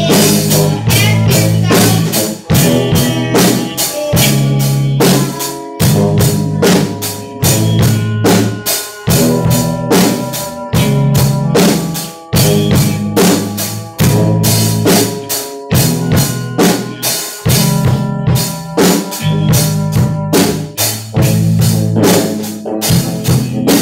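Live rock band playing: a drum kit keeps a steady, regular beat under held electric guitar and bass chords, with keyboard.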